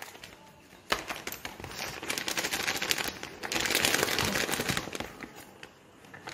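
Plastic gulab jamun mix pouch crinkling as it is picked up and handled, with a sharp click about a second in and crackling that is loudest in the middle and fades near the end.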